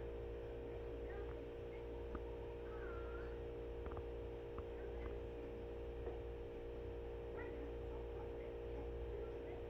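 Steady electrical hum with a few faint chirps and clicks over it, and a faint curling chirp about three seconds in.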